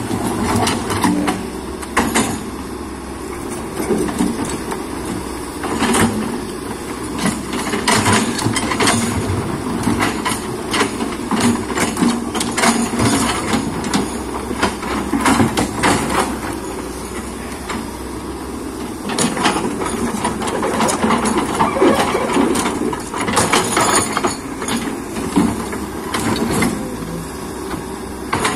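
Excavator engine running steadily under load, with frequent sharp knocks and clanks as it works, backfilling a hole with stone and mud.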